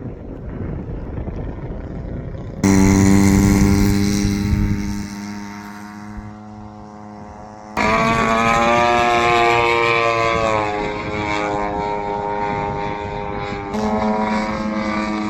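Engine and propeller of a radio-controlled SBACH 342 aerobatic model plane in flight, a steady buzzing tone that falls in pitch as the plane passes, about eight to ten seconds in. The sound jumps abruptly in loudness and pitch about three, eight and fourteen seconds in.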